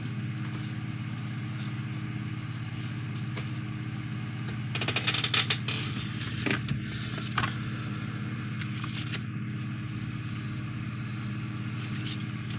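Paper instruction booklet being handled and its pages turned, with a cluster of crisp rustles about five seconds in and a couple more soon after. Under it runs a steady low hum.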